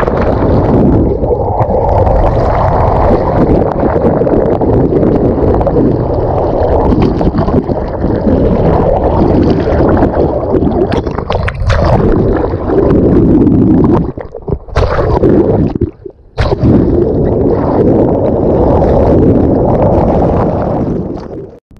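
Loud rushing and gurgling of sea water around a moving boat, with a few brief dips in level about two-thirds of the way through.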